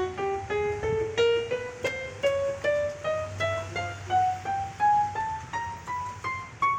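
Yamaha PSR-E443 portable keyboard played one key at a time in a steadily rising run, about three notes a second. Each key sounds a clean note: the repaired keys are being tested and all are working.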